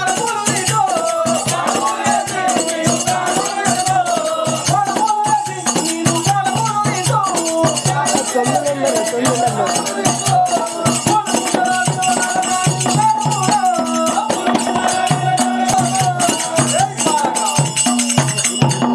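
Live folk-drama accompaniment music: a drum keeps a steady beat under a wavering, sliding melody, with constant metallic jingling over it.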